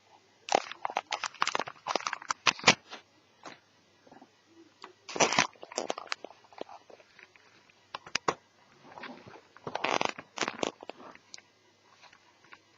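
Clicks and clatter of small hard parts being handled on a netbook, coming in four bursts with short quiet gaps between them.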